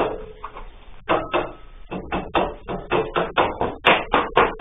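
A quick run of sharp knocks on a wooden sliding-door frame, about five a second, starting about a second in and getting louder near the end.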